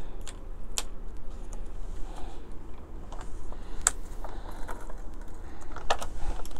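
Scotch Advanced Tape Glider, a tape gun, laying double-sided adhesive tape onto thin cardstock flaps: a few sharp clicks from the gun and paper handling, over a steady low hum.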